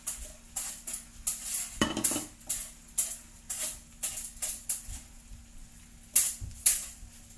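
Sliced bottle gourd tipped into a frying pan, then stirred and turned with a wooden spoon: a run of scraping, clattering strokes against the pan about twice a second, the loudest two near the end, over a faint steady hum.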